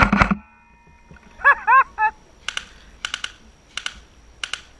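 Airsoft guns firing: a rapid burst cuts off just after the start, then sharp single shots crack in small clusters of two or three. A short voice call comes about a second and a half in.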